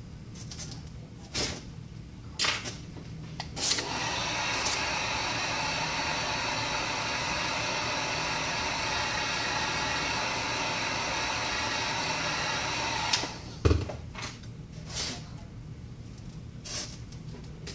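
Handheld electric heat gun blowing steadily for about nine seconds, starting about four seconds in and cutting off sharply; a few light clicks of tool handling come before it and a knock just after it stops.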